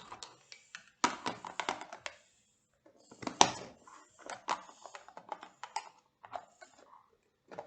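Scattered clicks and knocks of hands handling a plastic slime container, coming in short clusters with brief pauses.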